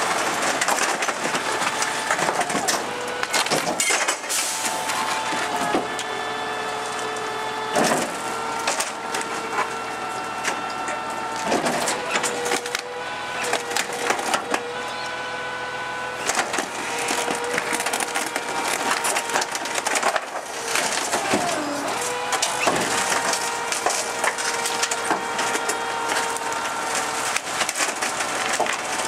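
MacDonald Johnston JP6 rear-loader compactor on a Scania 93M garbage truck crushing bulky household waste (a sofa and timber) in its hopper. Repeated sharp cracking and splintering of wood, with long squealing tones as the packer blade presses the load down.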